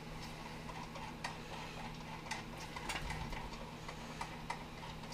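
Scattered light clicks and taps of plastic and metal parts being handled as the resin tank of an Elegoo Mars resin 3D printer is set in place and fastened, over a steady low hum.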